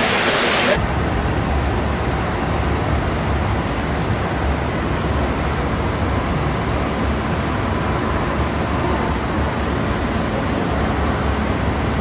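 Water splashing in a small fountain for the first second, then, after a sudden change, strong wind rushing steadily over the microphone with a low rumble.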